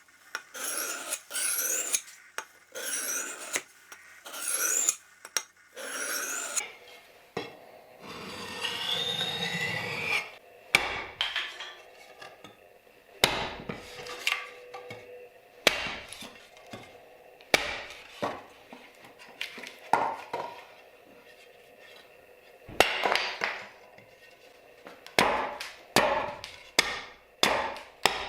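Rasping strokes, about one a second, for the first six seconds, then a short scraping stretch. After that, a restored meat cleaver chopping into wood: sharp blows every second or two, coming faster near the end.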